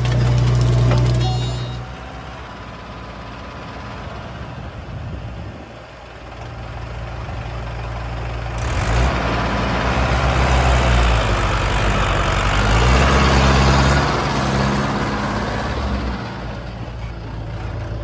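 Heavy diesel engines running: the JCB 3DX backhoe loader's engine is loud and steady at the start as its bucket tips out a load of earth. After a quieter stretch, a diesel engine revs up, its pitch stepping up and down, loudest from about ten to fourteen seconds in, then easing off.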